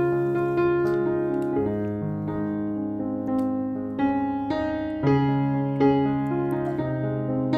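Background piano music: a melody of single notes over held low notes.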